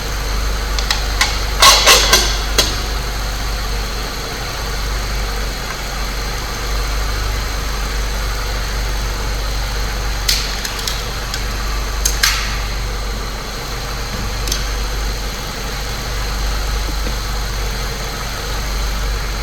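Saab 9-3 Turbo engine idling steadily, with sharp plastic clicks and knocks as the engine cover is pressed back on: a cluster about two seconds in and a few more singly between ten and fifteen seconds.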